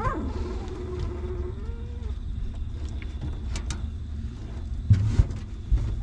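A dog's long whining cry, sliding down in pitch at the start and then held, rising slightly before it fades about two seconds in. A steady low rumble runs under it, with a few dull thumps about five seconds in.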